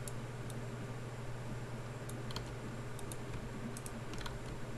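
Computer keyboard keys and mouse buttons clicking now and then, some clicks in quick pairs, over a steady low hum.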